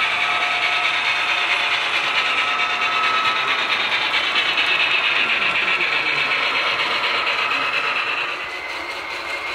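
HO scale model train, an articulated steam locomotive with its cars, running past close by: a steady mechanical whir and rattle of motor, gears and wheels on the track. It gets somewhat quieter near the end as the train moves off.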